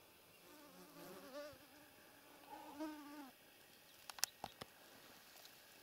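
Faint buzzing of a flying insect passing close, twice, its pitch wavering as it moves. A few sharp clicks come about four seconds in.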